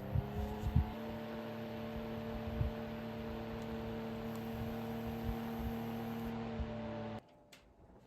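Fioge mini evaporative air cooler's fan motor running with a steady hum, its pitch shifting slightly about a second in, then cutting off suddenly about seven seconds in. A few soft low knocks sound over it.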